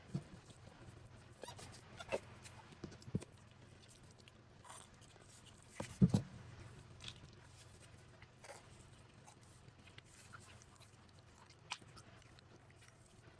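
Scattered clicks and knocks from handling slime containers and slime, loudest in a short cluster about six seconds in.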